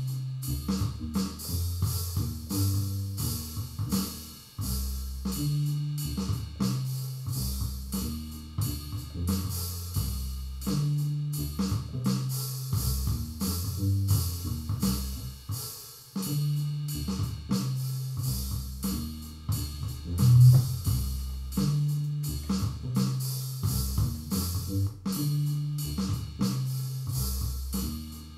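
Instrumental electronic jam: a repeating bass line that loops about every five and a half seconds under drums and hi-hat, with plucked guitar-like notes and one louder accent about two-thirds of the way through.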